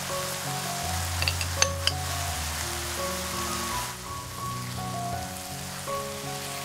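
Background music with held notes over a steady sizzling hiss of food frying in a pan, with a few sharp clinks between one and two seconds in.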